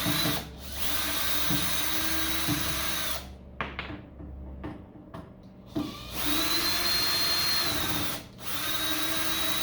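Cordless power drill/driver running in several bursts as it backs screws out of the battery charger's handle: a steady high motor whine, one long run of about two and a half seconds, a pause with small handling noises, then two more runs.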